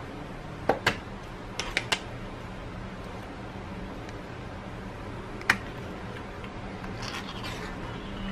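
Opening a can of canned ham: the plastic snap-on cap clicks off in a pair of clicks and then three more, one sharp metallic click comes about five and a half seconds in as the ring-pull is lifted, and a short rasp follows near the end as the metal lid starts to peel. A steady low hum runs underneath.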